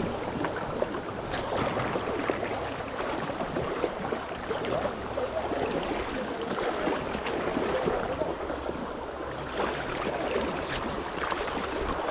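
Shallow river current running over a cobble bed close to the microphone, a steady rush of water.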